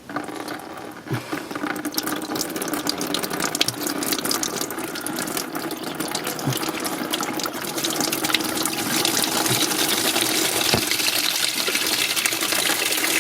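Engine coolant running out of the opening left by the removed water pump and splashing into a catch pan below: a steady pour that builds over the first couple of seconds and then holds, with small splashes and drips.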